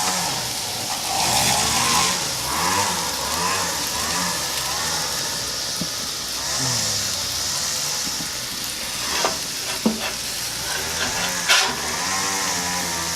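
Food frying on a cast-iron Lodge griddle over a gas grill, a steady sizzle with a few sharp clicks late on.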